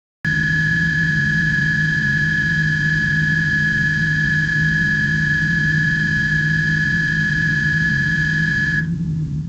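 Spaceship-interior ambience sound effect: a steady low hum with a steady high-pitched tone above it, starting suddenly. The high tone drops out near the end, just before the whole sound cuts off.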